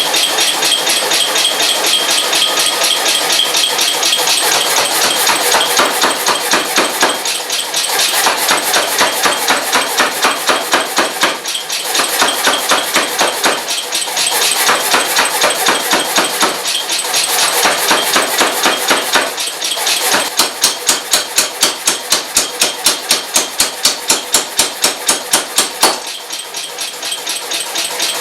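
Rapid, evenly repeated hammer blows on hot wrought iron, ringing, in spells broken by short pauses, with a regular run of about three blows a second near the end.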